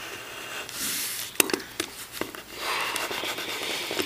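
Pencil scratching on paper in shading strokes, with a few light ticks in between.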